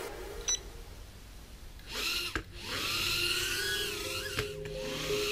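A JJRC H36 mini quadcopter's tiny motors and propellers spin up about two seconds in with a high whine that rises and falls in pitch as the throttle is worked, dropping out briefly twice. A brief high tick comes about half a second in.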